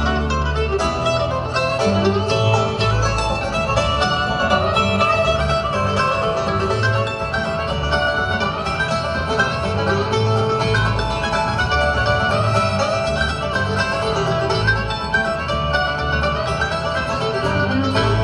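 Bluegrass band playing live, with banjo, fiddle, mandolin and acoustic guitars over a bass line.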